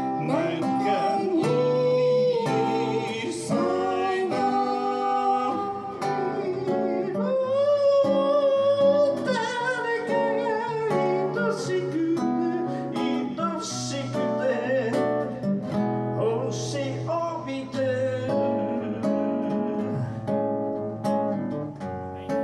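A man singing a folk song to his own strummed acoustic guitar, his voice hoarse after several songs.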